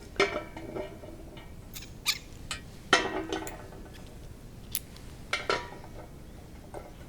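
Metal parts of a paint pressure pot clinking and knocking as they are picked up and fitted together, a handful of sharp ringing knocks several seconds apart, the loudest about three seconds in.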